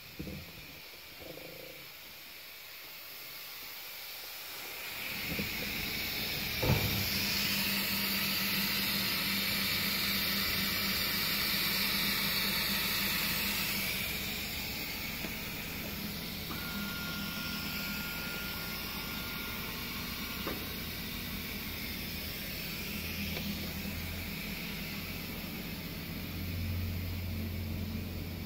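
hiw BBT ERL 80 S eccentric press starting up about five seconds in: its drive runs with a steady low hum, a sharp click sounds soon after, and compressed air hisses for several seconds before the hum carries on alone, with a deeper hum joining near the end.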